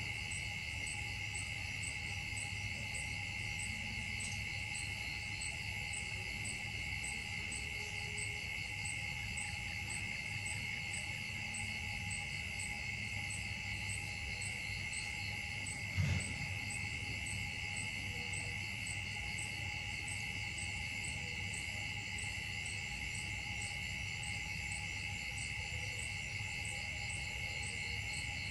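Steady drone of an insect chorus: a couple of unchanging high whining tones, with a faint pulsing at about two a second high above them. A single short knock sounds about halfway through.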